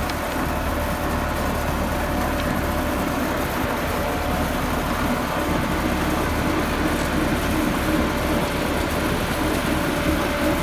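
Massey Ferguson 385 tractor's diesel engine running steadily under load, pulling a potato digger whose chain elevator is lifting potatoes and soil.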